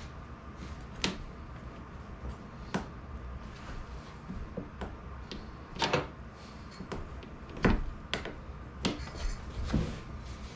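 Irregular sharp knocks and taps as windshield glass and its rubber seal are handled and worked into the frame. The loudest knocks fall a little past the middle.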